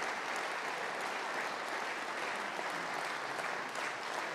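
An audience applauding, a steady dense patter of many hands clapping.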